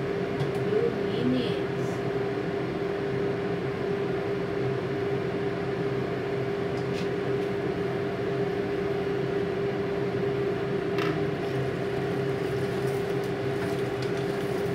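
Steady mechanical hum with one constant mid-pitched tone, from running kitchen equipment, with a few faint light clicks.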